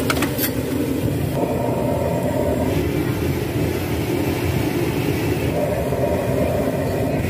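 Gas wok burner running at full flame, a steady low rushing noise, with a few sharp metal clinks right at the start.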